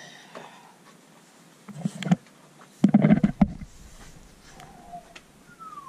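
Two short bursts of rumbling and knocking on the camera's microphone, about a second apart near the middle, as it is jostled while scrambling over rock.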